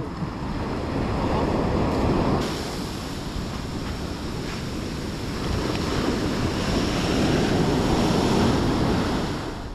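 Ocean surf washing on the shore, with wind on the microphone; the wash swells about two seconds in and again near the end.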